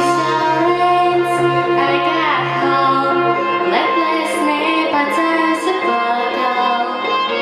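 A girl singing a pop song over a backing track.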